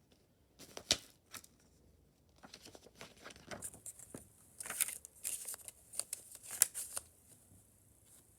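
Plastic Blu-ray disc case and its contents being handled: scattered clicks and rustling, with a sharp snap about a second in and a busier run of clicks and crinkling in the middle.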